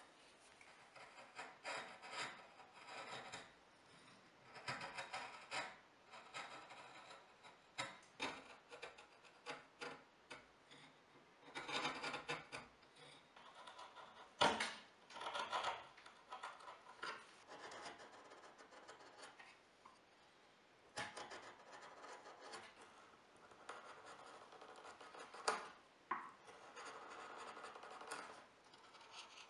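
Hand chisel paring pine, a run of uneven scraping strokes as shavings are cut from a notch, with a couple of sharp clicks about halfway through and near the end.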